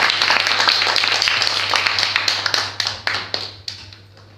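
Audience applause dying away. Steady clapping thins out after about two seconds into a few scattered last claps, and stops shortly before the end.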